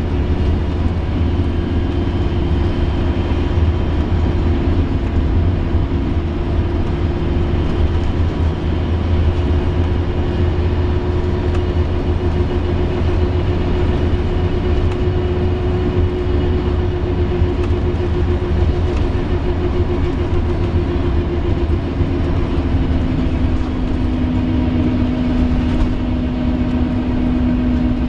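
Inside a Scania Omnilink K230UB single-deck bus on the move: steady low engine and road rumble with a sustained groaning tone above it. The groan drops to a lower pitch about three quarters of the way through and carries on.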